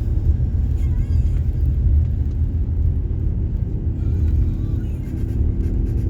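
Car driving along a road: a steady low engine and road rumble.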